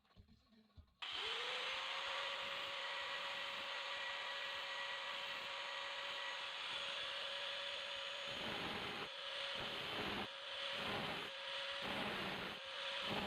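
An electric power tool motor switches on about a second in. Its pitch rises briefly to a steady whine over a hiss. From about eight seconds the sound swells and dips roughly once a second.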